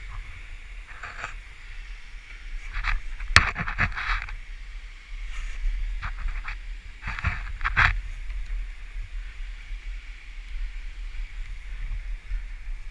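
Off-road vehicle riding a rough trail, heard as a steady low rumble, with a series of sharp knocks and clatters between about three and eight seconds in.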